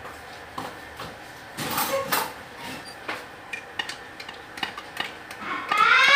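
Crockery and utensils clinking and knocking on a kitchen counter as cups and dishes are handled, with a short burst of clatter about two seconds in. A high voice calls out near the end.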